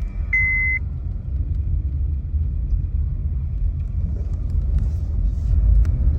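A 2007 Honda Civic Hybrid being driven: a steady low rumble of road and engine noise that grows somewhat louder near the end. A short high electronic beep sounds and ends within the first second.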